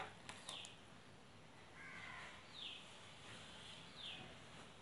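Faint bird calls: short high notes falling in pitch, repeating about every one to two seconds, with a few light clicks at the very start.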